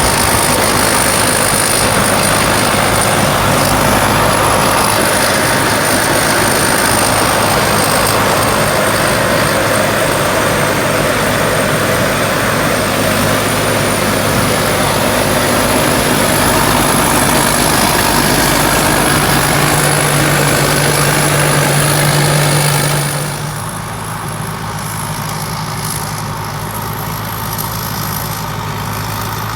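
Combine harvester's diesel engine running loud and steady, with a thin high whine over it. About three-quarters of the way through it eases to a quieter run.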